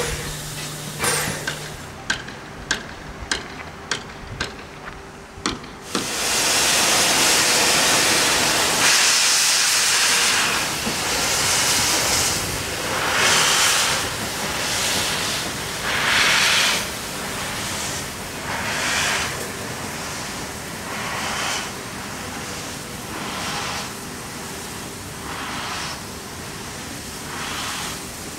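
Narrow-gauge 2-10-2 tank steam locomotive of the HSB class 99.72 moving off slowly with its cylinder drain cocks open: a loud burst of steam hiss about six seconds in, then pulsing hisses roughly once every second and a half. Before the hiss, a run of sharp clicks.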